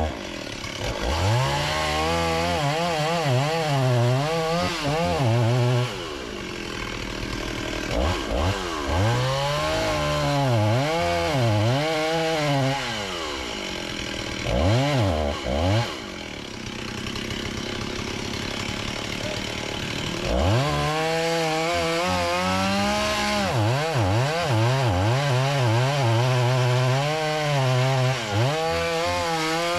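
Chainsaw cutting wood, its engine pitch wavering up and down under load in long spells. It drops back toward idle about six seconds in, again briefly after a short rev near fifteen seconds, then picks up for a long cut about twenty seconds in.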